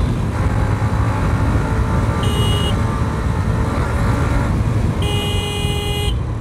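Hero Xtreme 125R's 124.7 cc single-cylinder engine running under way in third gear, with heavy wind rush over it. A horn beeps twice: briefly about two seconds in, then longer about five seconds in.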